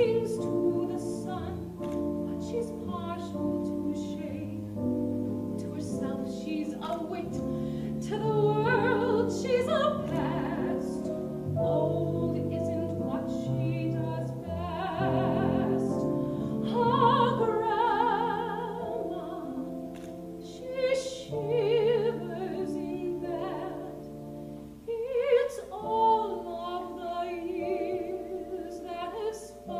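A woman singing a slow solo ballad in a trained, operatic style, with wide vibrato on the held notes, over a sustained accompaniment.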